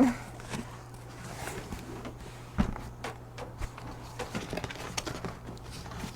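Cardboard shipping box being tugged and rubbed as a heavy hard gun case is worked out of it: scattered scrapes and knocks, a sharp knock at the start and a heavy thump about two and a half seconds in.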